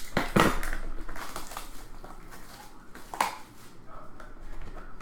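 A trading card box and its pack being opened and handled by hand: crinkling and tearing sounds with a few sharp clicks. The loudest comes in the first half-second, with another sharp one about three seconds in.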